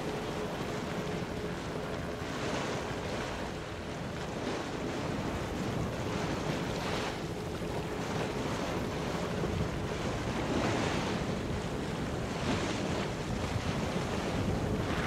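Wind and rushing sea water from racing sailing yachts cutting through choppy water, with surges of wash and spray every couple of seconds and wind buffeting the microphone. A faint steady hum runs underneath.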